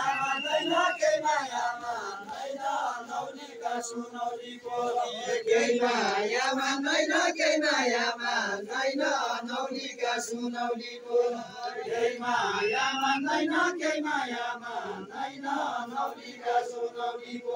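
A group of voices, mostly men, singing a Deuda folk song together in a chant-like unison, one phrase after another.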